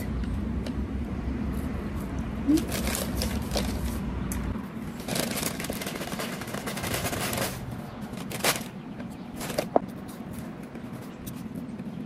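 Paper takeout bag rustling and crinkling as food is taken out of it, with scattered sharp crackles of paper. A low rumble underneath stops about four and a half seconds in.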